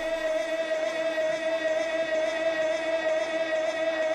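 Traditional Kun Khmer ring music: a sralai, the Khmer reed oboe, holding one long, steady high note.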